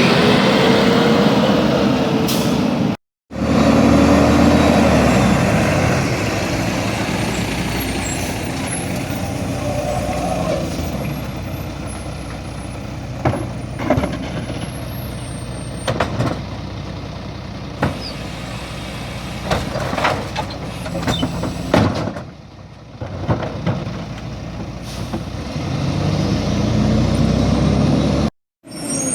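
Garbage truck at work: the engine running and revving up, with clanks and knocks through the middle and a hiss of air brakes.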